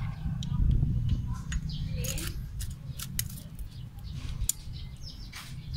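Scattered metallic clicks and scrapes of hand tools working a rocker-arm valve adjuster on a Toyota 4K engine, with the engine stopped, while the valve clearance is set with a feeler gauge.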